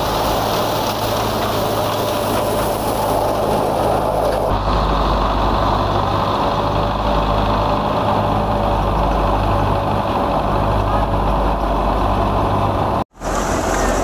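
Tractor engine and tractor-driven wheat thresher running steadily under load, with a steady low engine hum under the rushing noise of the machine. The sound changes abruptly about four and a half seconds in and drops out for a moment near the end.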